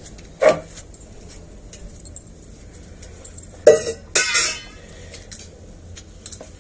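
Metal vessels clinking and knocking as they are handled: one knock about half a second in, then a louder clink with a short ringing rattle a little past the middle.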